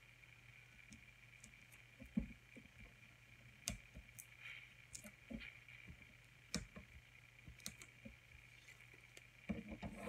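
Faint, scattered taps and clicks of fingertips and nails pressing foam adhesive squares onto cardstock over a plastic cutting mat, with a rustle of card being handled near the end, over a steady low hum.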